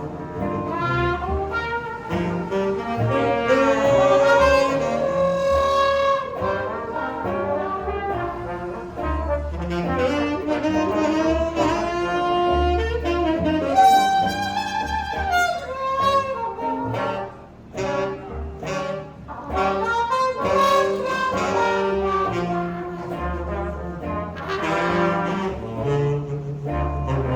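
Live jazz band playing, horns carrying the melody over a bass line.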